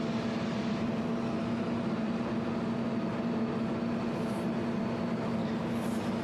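Jewelry laser welding machine running with a steady, even hum, with two faint brief high ticks about four and six seconds in.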